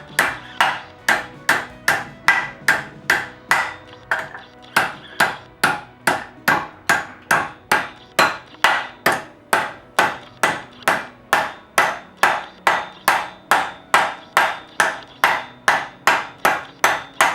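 Hammer blows bending a steel seatbelt mounting bracket over in a vise, about two sharp ringing strikes a second, evenly paced.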